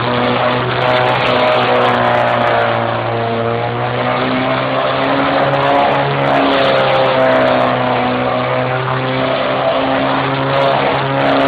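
Datsun ute engine held at steady revs during a burnout, the pitch rising and dipping slightly, over a steady hiss of spinning rear tyres.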